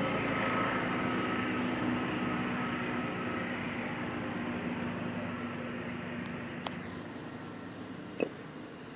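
A passing motor vehicle's engine drones steadily and slowly fades away. A single knock sounds near the end, as a wooden spoon strikes the cooking pot.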